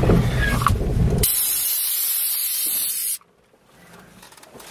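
The Mitsubishi L300 van's 2.4-litre 16-valve petrol engine and cab rumble loudly as the van crawls over rock for about the first second. The low rumble then stops abruptly, giving way to a steady high hiss for about two seconds, which cuts off suddenly to near quiet.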